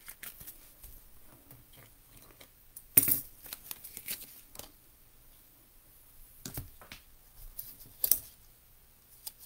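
Trading cards and plastic being handled on a tabletop: scattered soft rustles and small clicks, with a sharper click about three seconds in and a few more around six and a half and eight seconds.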